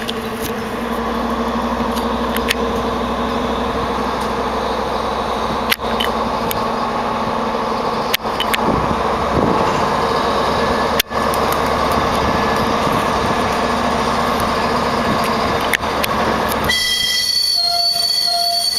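Diesel train in motion, heard from inside the carriage at the window: a steady engine drone with a low rumble. Near the end the drone drops away and high, steady wheel squeal sets in.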